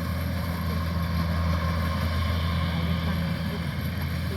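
Kubota rice combine harvester's engine running with a steady, even hum.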